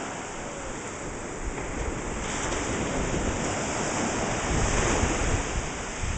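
Ocean surf breaking and washing over a shallow beach, a steady wash of noise that grows brighter and a little louder about two seconds in, with wind buffeting the microphone.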